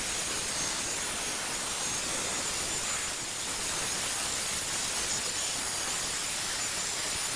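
Handheld hairdryer running steadily on the wet painted front of a sideboard: a constant rush of blown air with a faint high whine.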